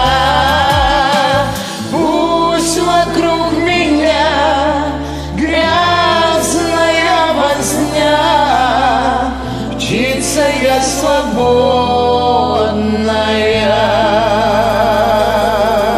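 Music: a song with singing that wavers in pitch with vibrato, over sustained low bass notes that change every couple of seconds.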